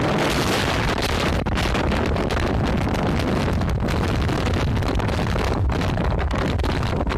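Blizzard wind buffeting the microphone: a loud, continuous rumbling rush with no break.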